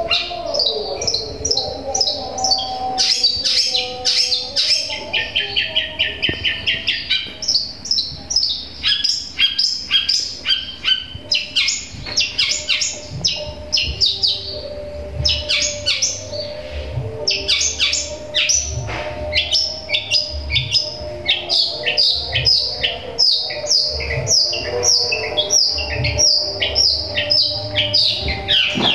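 Long-tailed shrike (cendet) singing without a break: fast strings of short, high chirps and chatter, a mimicking song that takes in sparrow calls.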